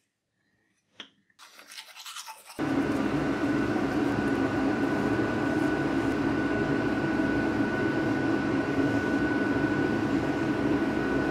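A small electric motor starts humming steadily about two and a half seconds in, with a thin steady whine on top. Before it there is near silence with a soft click and some rustling.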